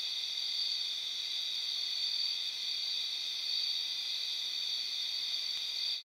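Steady, high-pitched chorus of night insects droning without a break; it cuts off abruptly at the very end.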